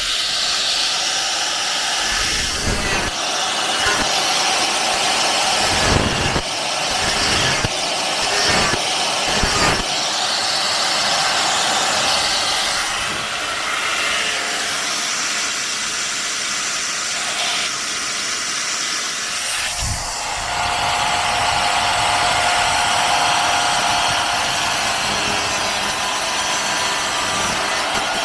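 Angle grinder working on a Ford Capri's rusty sheet-steel floor pan, running continuously, with the disc knocking against the metal several times in the first ten seconds and settling into a steadier whine about twenty seconds in.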